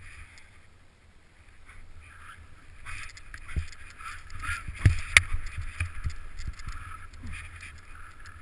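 Snow hissing and scraping under a rider's edges while turning through deep snow in trees, swelling with each turn. A few sharp thumps about halfway through, the loudest two close together.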